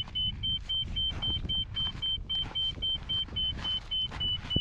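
Mammut Barryvox S avalanche transceiver in search mode beeping fast, about four short high-pitched beeps a second at a steady pitch, over low rumbling noise. The fast beep rate is the close-range signal of a buried transmitting transceiver roughly a metre and a half away during the fine search.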